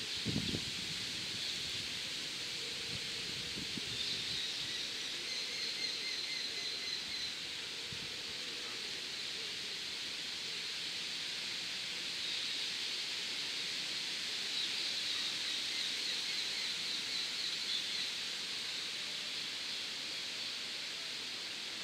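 Outdoor ambience with a steady hiss and birds calling high, rapid repeated notes: one run a few seconds in and a longer run in the second half. A low bump of handling noise right at the start.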